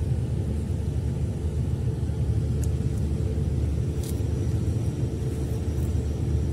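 Steady low rumble of a moving road vehicle, running evenly with no change in speed.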